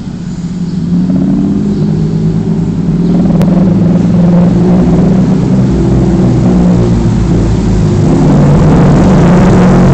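Supercar engines at low speed: a Ferrari F430 Spyder's V8 leading, with an Audi R8 close behind. The deep engine note grows louder over the first few seconds as the cars draw near, then stays loud as the Ferrari passes.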